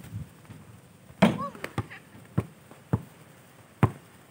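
A basketball bouncing on a packed-dirt court during one-on-one play: about five sharp separate bounces, roughly half a second to a second apart, with a short shout from a player about a second in.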